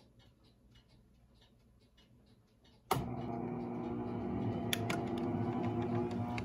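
Faint ticking, then about three seconds in a click as a player piano's pump motor switches on and runs with a steady hum and rumble.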